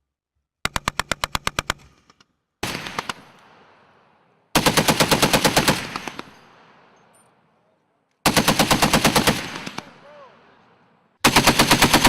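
Belt-fed military machine gun firing five short bursts of rapid, evenly spaced shots, each burst trailing off in a long echo across the range.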